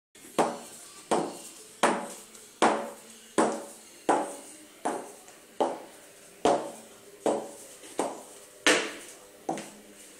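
An adult's ankle boot on one foot of a toddler clacking on a ceramic tile floor as she walks: a steady run of sharp heel knocks, about one every three-quarters of a second, each ringing briefly.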